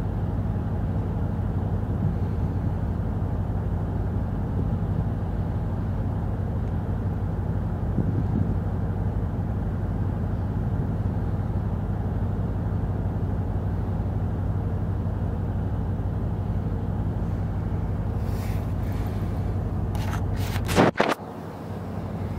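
Steady low diesel hum from the berthed car ferry Akashia, with several even low tones. A few sharp knocks come near the end.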